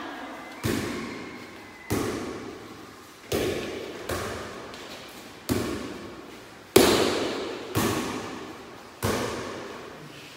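A light inflated gas-volleyball ball being struck by players' hands in a rally. It makes about seven sharp slaps a little over a second apart, each ringing out in the echo of a large hall, and the loudest comes about two-thirds of the way through.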